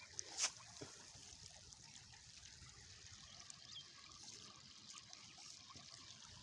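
Faint, steady trickle of a small river with an open-air hiss, broken by one sharp crackle about half a second in and a single faint bird chirp midway.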